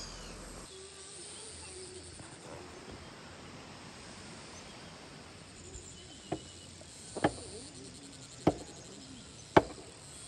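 Steady outdoor paddy-field ambience, then in the second half a run of five sharp knocks about a second apart, each louder than the one before.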